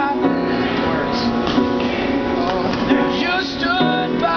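A man singing while accompanying himself on an upright piano: a live vocal over sustained piano chords, with some sung notes sliding in pitch.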